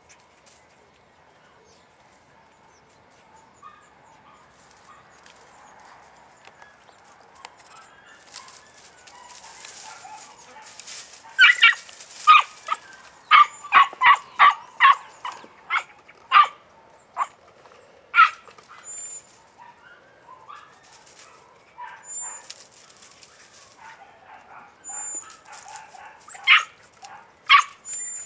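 Podenco puppy yapping in high-pitched yelps: a quick run of about eight, then single yaps every few seconds.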